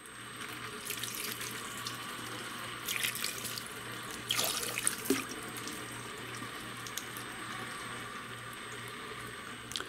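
Water pouring and trickling through a 3D-printed compost shredder's turning cutter rollers into a bucket below, with a few louder splashes about three and four and a half seconds in, to rinse out food scraps. Under it, a steady low hum from the cordless drill turning the shredder at low speed.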